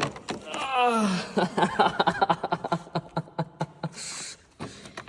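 A person's voice sliding down in pitch, then a run of short rhythmic voiced pulses like laughter, with a brief breathy hiss near the end.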